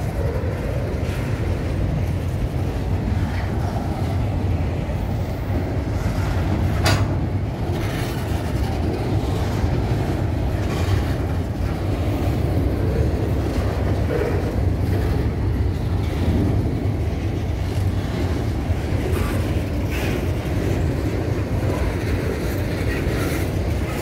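Freight train of covered grain hopper wagons rolling past at close range: a steady rumble of steel wheels on the rails with clickety-clack over the rail joints. A single sharp click comes about seven seconds in.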